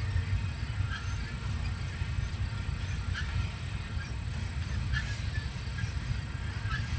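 Double-stack container freight train rolling past at a distance: a steady low rumble, with brief faint high chirps every second or two.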